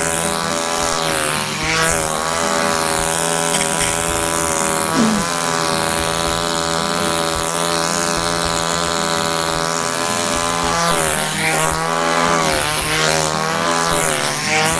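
Small two-stroke chainsaw engine running steadily, its pitch wavering slightly, with a few brief pitch swings as it is thrown and caught.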